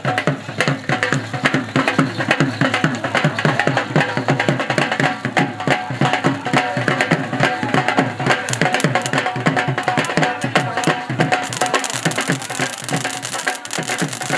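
Music with fast, dense drumming, tabla-like hand-drum strokes in quick succession, and a held tone over the middle part.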